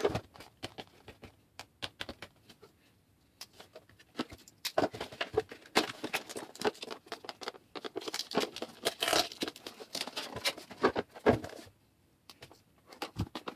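GoPro HERO4 retail packaging being handled and opened: the clear plastic case and cardboard box crackle, click and rustle irregularly, busiest in the middle, with a short pause near the end.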